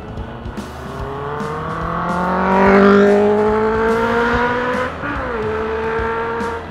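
Honda Bros 160's single-cylinder engine pulling under acceleration, its pitch rising steadily. About five seconds in the pitch drops sharply at an upshift, and then it runs steady.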